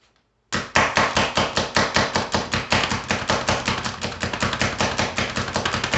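Pampered Chef food chopper being pumped hard and fast, its spring-loaded plunger driving the blade down through peeled hard-boiled eggs onto the base. It makes a rapid, even clatter of about six or seven strikes a second, starting about half a second in.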